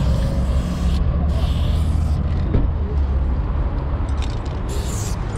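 Aerosol spray-paint can hissing in short bursts: one at the start, another about a second and a half in, and a last one near the end, over a steady low rumble.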